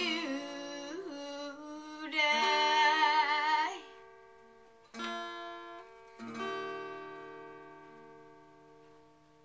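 A woman sings the last held notes of a country gospel song with a wavering vibrato over an acoustic tenor guitar. Then two final strummed chords ring out and slowly fade away, ending the song.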